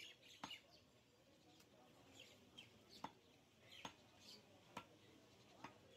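Faint, sharp chops of a large butcher's knife striking beef on a wooden chopping block, about one a second and irregular, with faint bird chirps behind.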